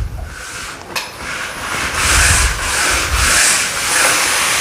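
Grout brush scrubbing back and forth along tile grout lines, a rough scratching that grows louder about a second in and swells with each stroke.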